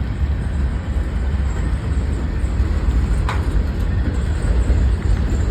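Freight train running by: a steady low rumble with rail noise, and one brief click about three seconds in.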